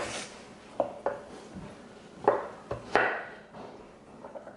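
A handful of irregular knocks of a kitchen knife cutting carrots on a wooden cutting board, spaced unevenly through the first three seconds.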